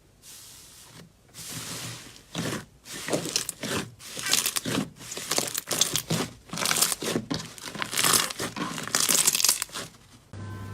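Slime being squeezed and worked by hand, making a fast, irregular run of short crackling sounds that start faint and grow louder after the first second or so.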